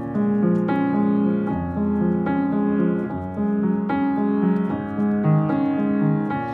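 Upright piano playing a slow passage of held chords, a new chord struck about every half second to second.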